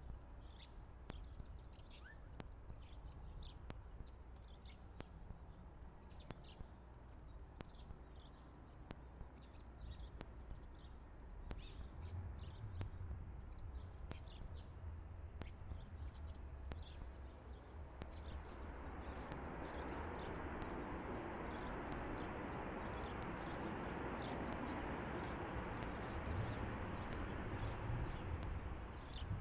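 Boeing 737 jet landing at a distance: a low rumble builds about halfway through, then a broad rush of jet engine noise swells after touchdown and holds through the rollout. Faint insect chirping runs underneath.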